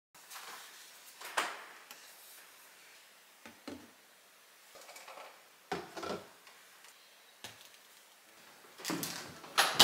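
Bottles and kitchenware set down on a kitchen counter: a handful of separate knocks and clatters with handling rustle, the loudest cluster near the end.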